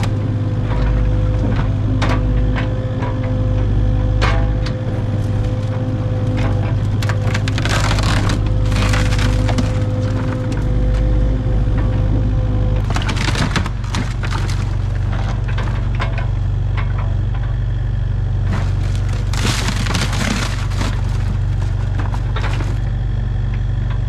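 Kubota mini excavator's diesel engine running steadily while its bucket and thumb crush wooden boards and sheet metal, with bursts of cracking and splintering wood in several clusters.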